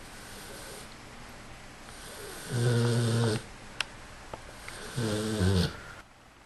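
American Bulldog snoring: two loud, low snores with a rattling edge, each under a second long and about two and a half seconds apart, with softer breathing between them. A brief sharp click comes between the snores.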